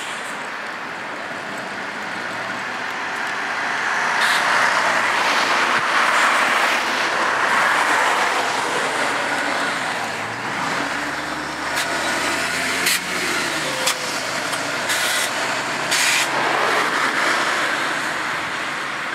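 VDL Berkhof Ambassador 200 city bus driving past at close range, its diesel engine and tyres growing louder and then pulling away with the engine note shifting in pitch. A few short clicks come through in the second half.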